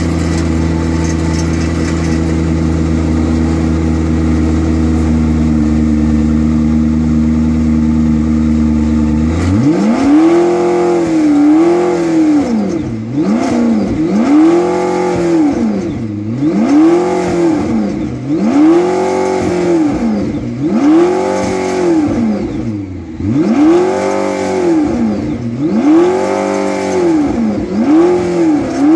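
McLaren P1's twin-turbo V8 running at a steady idle, then, about nine seconds in, blipped repeatedly to high revs, roughly one rev every second and a half, each rising sharply in pitch and falling back.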